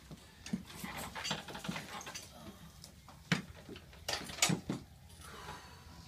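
A person turning over on a padded chiropractic table: clothing and padding rustling, with a few sharp knocks and bumps, the loudest three between about three and four and a half seconds in.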